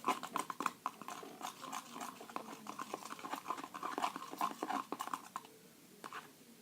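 Sticky, wet clicking and squishing of hand-soap-and-salt slime being stirred and worked, in quick irregular clicks that die away after about five seconds.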